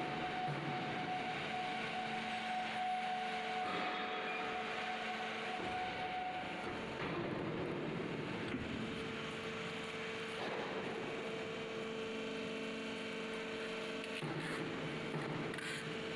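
Horizontal sawdust baling machine running: a steady mechanical hum and rush, with a steady whine that gives way to a lower one about halfway through.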